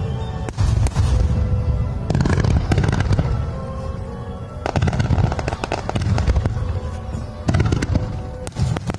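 Fireworks display: aerial shells and ground fountains going off in a rapid string of bangs and crackles over a deep rumble, easing briefly near the middle before thickening again, with music playing underneath.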